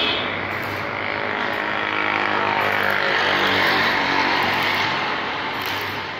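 Electric arc welding on a steel grill gate: the arc gives a steady sizzling crackle over a low hum, easing off near the end.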